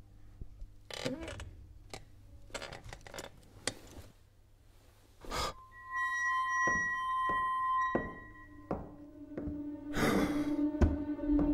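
Sound effects and music for an animated short: scattered soft clicks and taps, a thunk about five seconds in, then a held bright chime over music for about two seconds, and a swish near the end.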